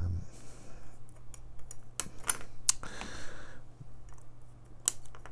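Flush cutters snipping the excess resistor leads off the back of a soldered circuit board: a string of sharp clicks, the loudest three in quick succession about two seconds in and another near the end.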